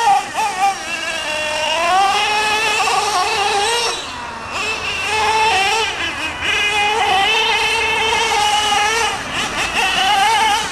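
Small nitro engine of an HPI Savage 25 1:8 RC monster truck, revving up and down in a high-pitched whine as the truck drives. The pitch wavers constantly, with a brief drop about four seconds in.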